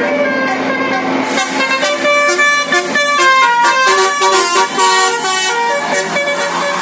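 Indonesian bus 'telolet' musical horn of the Basuri type playing a quick melody of changing notes, starting about a second and a half in, over traffic noise.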